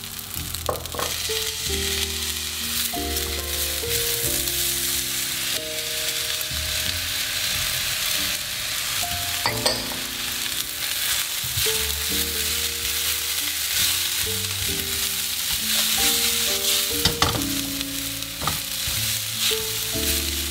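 Rice and peas sizzling in a wok over a gas burner while a spatula stirs and scrapes them, with a few sharp knocks of the spatula against the wok.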